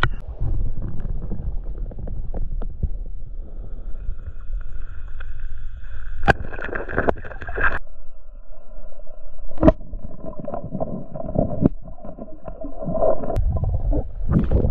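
Muffled underwater sound of a diver moving through a stream: water sloshing and bubbling against the camera, with a few sharp clicks and a faint steady hum underneath.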